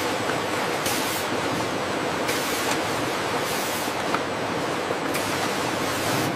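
Steady factory-floor machine noise, with several short hissing bursts about a second apart.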